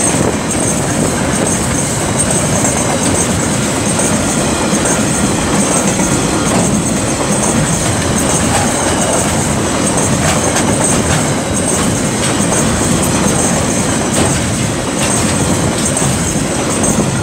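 Freight train wagons rolling past close by: a steady loud rumble and clatter of steel wheels on the rails, with scattered clicks and a thin high whine above it.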